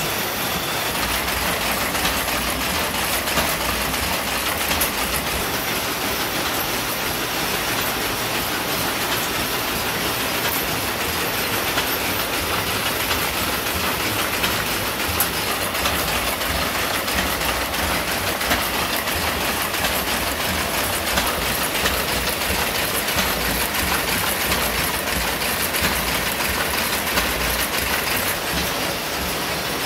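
Power looms weaving river grass (korai) sleeping mats, running with a steady, dense mechanical clatter of rapid clicks and knocks.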